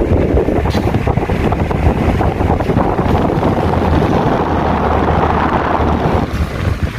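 Arno 40 cm wall fan running, its airflow buffeting the microphone as a loud, steady rush of wind over a low hum. The higher part of the rush drops away about six seconds in.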